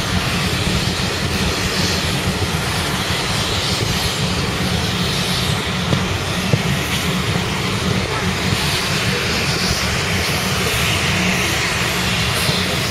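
Steam-hauled train running at speed: a steady, loud roar of wheels and air with no distinct rhythm.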